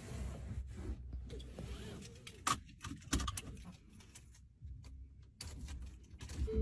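Faint rustling and a few small sharp clicks inside a car cabin, over a low rumble, with the two clearest clicks about two and a half and three seconds in.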